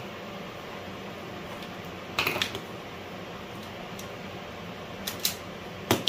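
Small clicks and taps of wires and small parts being handled on a workbench: a cluster of clicks about two seconds in and a few more near the end, over a steady background hum.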